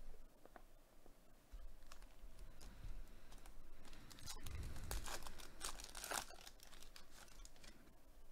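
Foil wrapper of a 2021 Panini Select baseball card pack crinkling and tearing as it is opened by hand, after a few light clicks of handling; the crinkling is densest a little past the middle.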